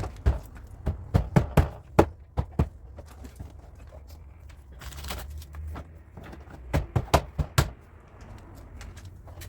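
Hammer striking car body sheet metal in a run of sharp knocks, then after a pause a second run of knocks, over a steady low hum; a short hiss comes midway.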